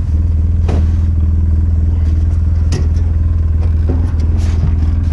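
Engine of a side-by-side utility vehicle (UTV) running at a steady speed with an unchanging low drone, with a few brief rattles and clicks from the vehicle's body.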